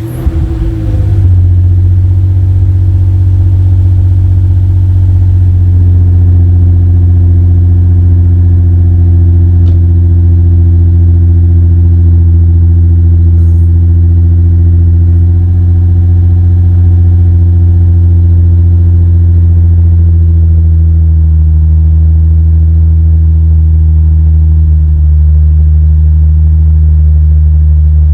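Infiniti G35's 3.5-litre V6 running through test pipes in place of the catalytic converters, with the downpipe exhaust leak fixed. It fires up at the start, then idles steadily. About 20 seconds in, the idle settles to a lower note.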